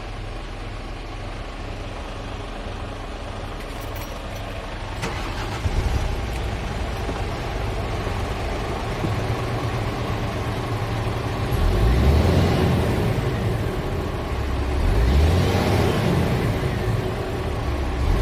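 Scania G450 truck's 13-litre inline-six diesel heard from inside the cab, idling steadily at first, then revved up and let fall back several times in the second half. A single click comes about five seconds in.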